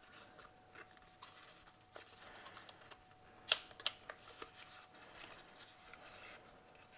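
Faint handling noise from unboxing by hand: soft rustling of packaging and a few sharp little clicks, the loudest about three and a half seconds in.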